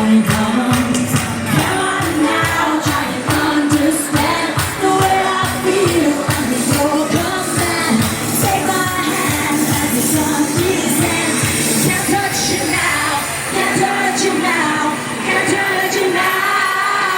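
Loud live dance-pop music with singing over a steady kick-drum beat. About twelve seconds in the beat drops out, leaving held synth chords.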